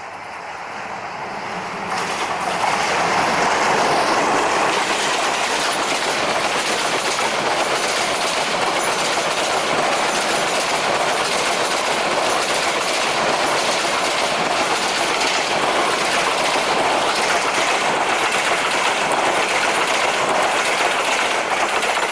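EMD GT18LA-2 diesel locomotive running up and past, building over the first few seconds, then a long meter-gauge passenger train rolling by, its coach wheels clattering over the rail joints in a steady clickety-clack.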